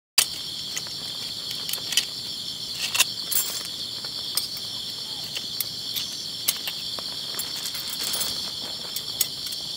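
Steady chorus of insects chirring, with scattered sharp clicks and taps throughout.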